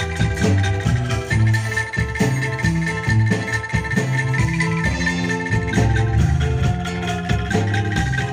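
Live band music played loud through a large PA sound system during a sound check, with heavy bass notes under percussion and melody instruments.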